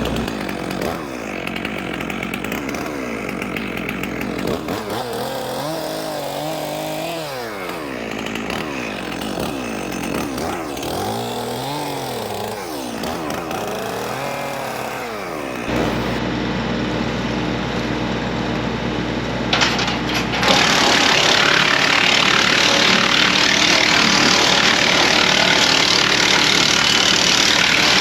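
PTO-driven wood chipper chewing branches, its pitch dipping and recovering several times as the feed rollers pull wood in and the drum takes the load. Past the middle the sound changes and becomes louder and more rough and noisy, as heavier material goes through.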